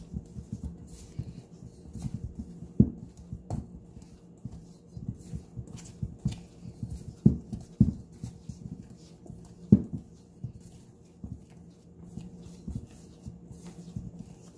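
Hands kneading and punching down risen bread dough in a stainless-steel bowl: a run of soft, irregular squishing thuds, with about four louder knocks.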